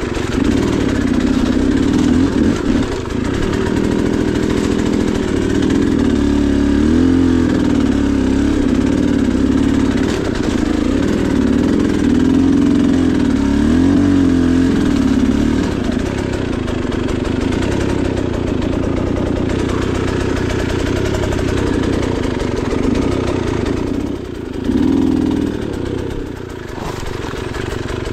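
Dirt bike engine running at low revs, its pitch rising and falling with small throttle changes through the first half. It then holds steadier, with a short rev near the end.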